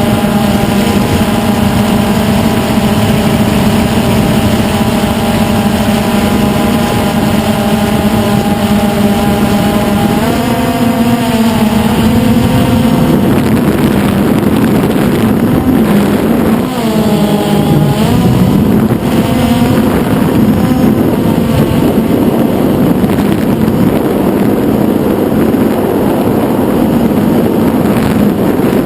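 DJI Phantom 2 quadcopter's motors and propellers whining steadily in flight over wind noise. The pitch wavers and dips about ten seconds in and again around seventeen seconds as the throttle changes.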